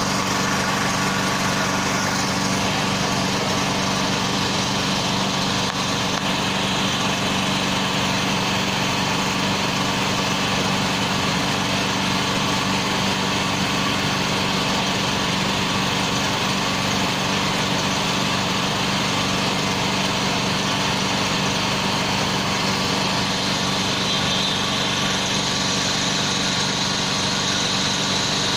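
Engine of a boom-crane truck running steadily at idle, an even hum that holds the same pitch throughout.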